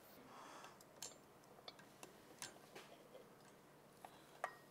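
Faint, scattered light metal clicks and taps as the Yamaha YXZ1000R crankshaft is lowered and seated into the crankcase, the sharpest click near the end.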